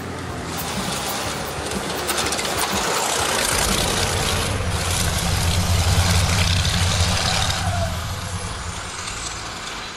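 Heavy multi-axle off-road truck driving past on a dirt track: its engine rumble grows louder, is loudest about halfway through, then drops in pitch and fades as the truck pulls away.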